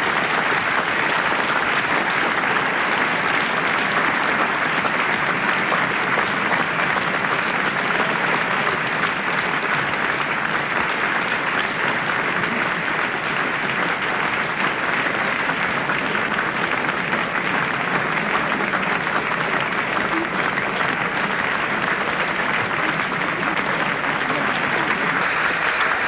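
A large audience applauding in an even, unbroken ovation after a debate speech ends.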